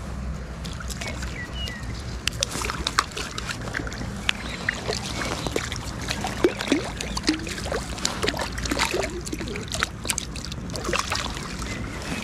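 Hooked trout splashing and thrashing at the water's surface while being played in close to the bank: an irregular run of sharp splashes and slaps from about two seconds in.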